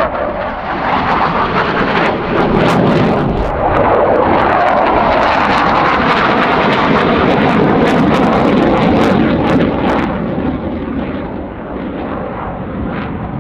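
Jet noise from a MiG-21 LanceR C's single turbojet in a display pass: a loud, steady rush with crackling through the middle, easing a little near the end.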